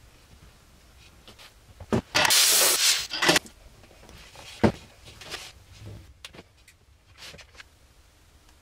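Hands working on a bare wooden snare drum shell: a few light knocks and clicks, and one short loud hiss about two seconds in, while wood glue is worked into the delaminated plies and spring clamps are fitted.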